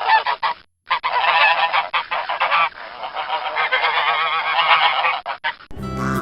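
A group of domestic geese honking, many calls overlapping, with a short break about a second in.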